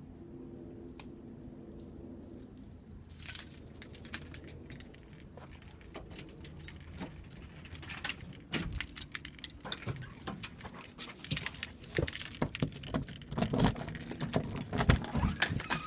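A low, steady vibrating hum of several tones for the first few seconds, then from about three seconds in a bunch of keys jangling and clinking over and over, getting louder toward the end.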